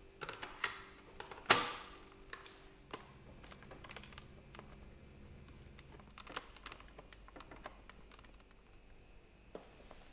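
Small clicks and taps of a screwdriver working the Phillips screws out of a Dyson V6 battery pack's plastic housing, with one sharper plastic knock about a second and a half in and scattered lighter ticks after.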